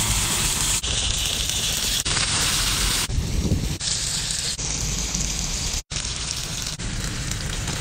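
Whole octopus sizzling on a hot stone slab over a wood fire: a steady hiss of liquid frying on the stone, cut into several short pieces that change abruptly every second or so.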